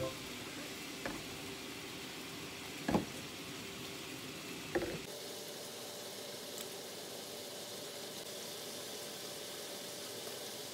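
Chicken frying in a pan, a steady sizzle, with three short knocks of things set down on the counter in the first half, the loudest about three seconds in.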